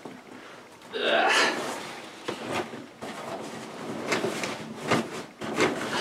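A person straining as he reaches out of a seated position, with a breathy grunt or exhale about a second in, followed by soft knocks and rustling as a padded drone bag is grabbed and dragged over.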